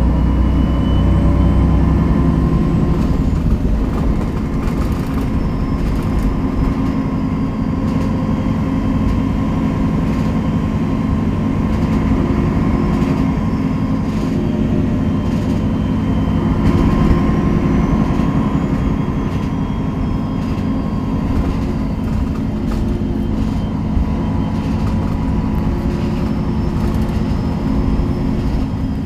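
Inside a 2003 MAN NG 313 articulated city bus under way: the diesel engine runs steadily, with road noise and scattered rattles and clicks. A faint high whine rises and falls.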